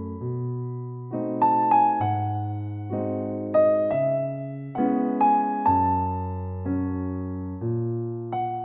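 Background music: a slow, gentle electric piano piece, chords and a melody struck about once a second over a bass line, each note fading away.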